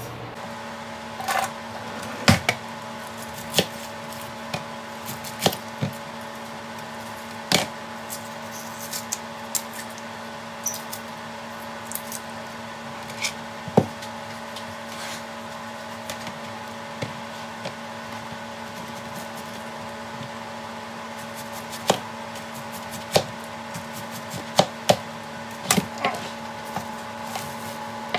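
Irregular sharp knocks and clatters of a knife and plastic cutting board as a red onion is peeled and cut, with several quick knife strokes on the board near the end. A steady kitchen appliance hum runs underneath.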